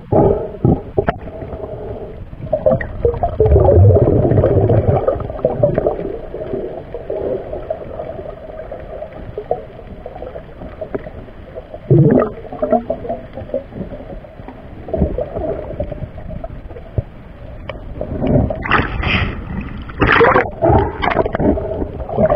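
Diver's exhaled bubbles gurgling underwater in irregular bursts a few seconds apart, heard through the camera housing, with a low rumble about three to five seconds in.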